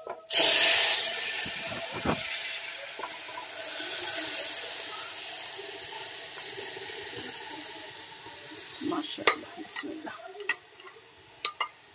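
Hot tempering oil with fried spices sizzling loudly as boiled dal is poured into it: a sudden hiss that breaks out just after the start and slowly dies down over several seconds. A few light clinks of the pots come near the end.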